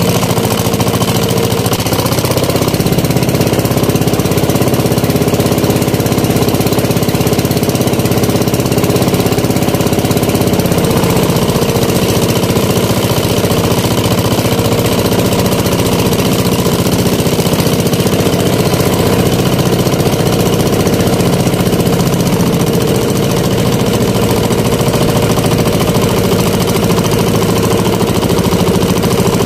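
Small engine of a motorized outrigger boat running under way. Its pitch rises about two seconds in and settles back down around ten seconds in.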